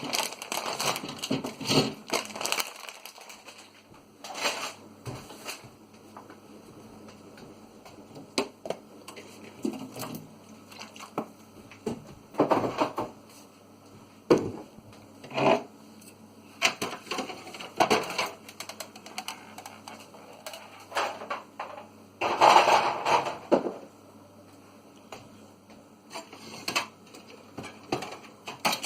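Food, bottles, jars and plastic containers being taken out of a fridge and set down: irregular knocks, clinks and rustles over a faint low hum.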